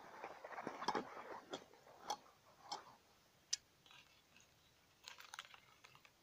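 Close handling noise from the angler's hands and gear: a rustling scrape in the first second or so, then several separate sharp clicks and taps, as a pike is handled off the spinner.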